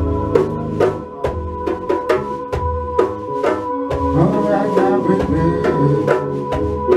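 A band playing live: keyboard holding chords over a steady hand-drum rhythm, with electric bass. Partway through, a line bends up and down in pitch.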